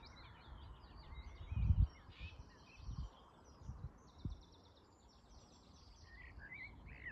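Small songbirds singing and twittering in scrub, with fast trills, a run of rapid repeated notes in the middle and short chirps near the end. Several low, dull thumps on the microphone, the loudest a little under two seconds in.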